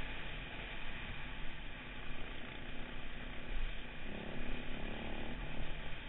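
Enduro motorcycle heard from on board while riding a dirt track: the engine running at speed under heavy wind buffeting on the microphone. The engine note comes through more clearly for about a second past the middle.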